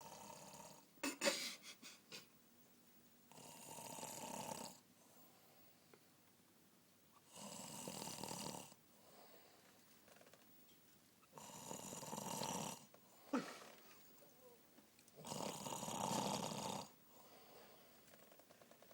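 A man snoring in slow, even cycles: four long rasping snores, each about a second and a half, roughly every four seconds. A few short sharp sounds come about a second in, the loudest of them louder than the snores, and another shortly after the third snore.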